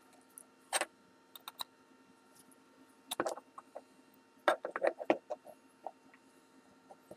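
Small metal clicks and taps in a few short clusters: lock driver pins and damaged springs being worked out of a Kwikset-clone lock cylinder's pin chambers.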